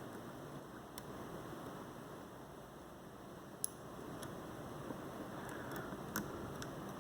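Small metallic clicks and ticks of a spool driver pin and tools being worked into a pin chamber of a Master 296 lock cylinder: about six sharp clicks spread out, the loudest about halfway through, over a steady faint hiss.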